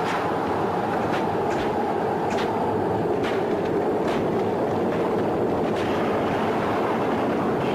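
Horse-drawn racing chariots: a steady, dense rumble of wheels and galloping hooves, with a sharp crack roughly once a second.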